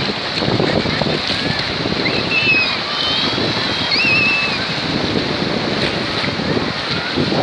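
Shallow surf washing in and out over the sand, with wind buffeting the microphone. A few thin, high squeaks cut through about two to four seconds in.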